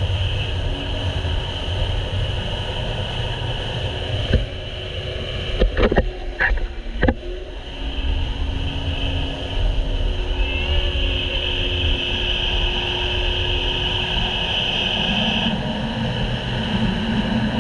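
Sea-Doo GTI jet ski running at speed: a steady engine and jet-pump whine over rushing wind and water spray, with a few sharp knocks around the middle as the hull slaps the chop.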